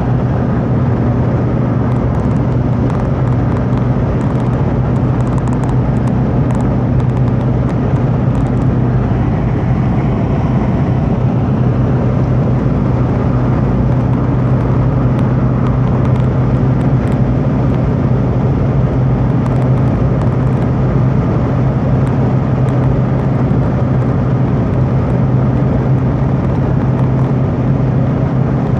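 Car interior noise while cruising at a steady speed on a motorway: a constant low drone with road and wind noise, unchanging throughout.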